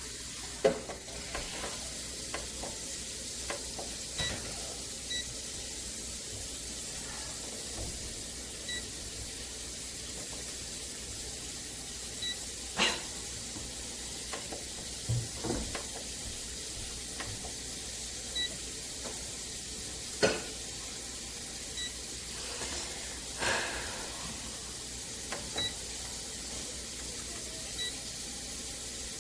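Cuisinart air fryer toaster oven at work: a steady hiss with food sizzling inside. Scattered sharp clicks and knocks come every few seconds.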